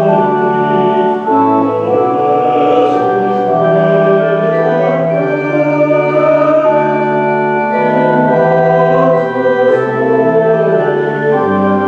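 Organ playing slow, sustained chords, the held notes changing every second or so.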